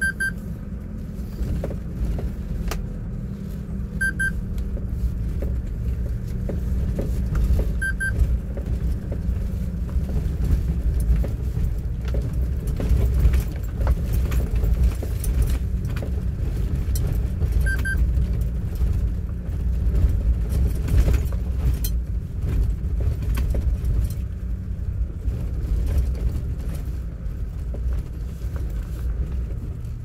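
A vehicle driving over a rough gravel dirt road, heard from inside the cabin: a steady low rumble of engine and tyres, with frequent clicks and rattles as it bumps along. A short electronic double beep sounds a few times.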